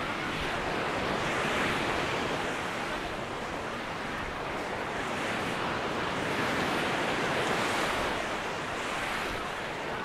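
Small Mediterranean waves breaking and washing up on a sandy beach, the surf swelling and easing twice, with some wind on the microphone.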